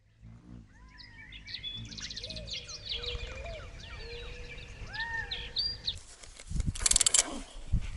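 Birds singing, a string of short whistled chirps and calls over a low rumble. About seven seconds in comes a short, loud rattling burst of handling noise as the rod and reel are worked.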